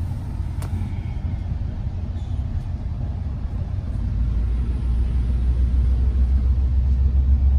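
Deep rumble of a moving diesel-hauled commuter train heard from inside a Bombardier BiLevel coach, growing louder about halfway through.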